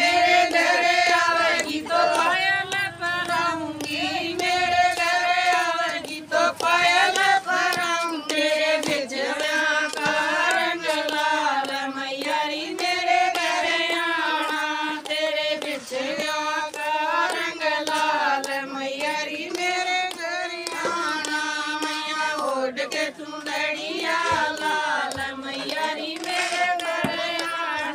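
A group of women singing a Haryanvi devotional bhajan together, with no instruments, keeping time with hand claps.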